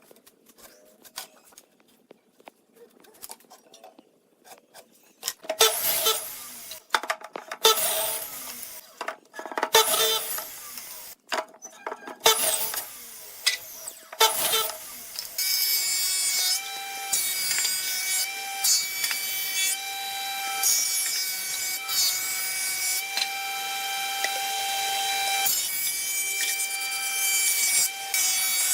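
A tool cutting wood. After a few quiet seconds of faint clicks come a series of short cutting strokes, and then, about halfway in, a steady whining cut that slowly grows louder.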